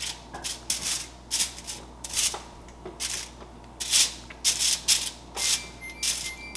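Aluminium foil lining a baking tray crinkling in short, uneven rustles, about two a second, as pieces of cookie dough are set down and pressed onto it.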